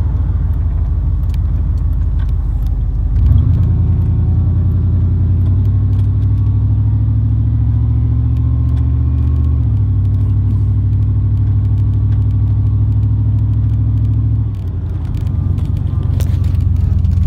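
Vehicle engine running steadily while driving. Its note shifts a few times, and it briefly drops in level about fifteen seconds in.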